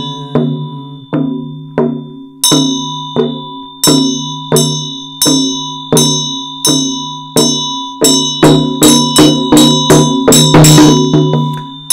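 Large chöd damaru, a two-headed Tibetan pellet drum, twisted back and forth so its beaters strike in a steady beat of about one and a half strokes a second, quickening after about eight seconds into a fast roll. A Tibetan ritual hand bell rings along with it from about two seconds in.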